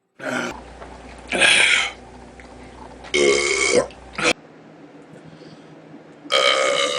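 A run of loud belches cut one after another: a short one at the start, two of about half a second to a second, and a long drawn-out belch beginning near the end.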